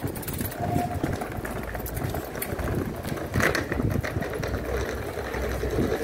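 A train's engine running steadily.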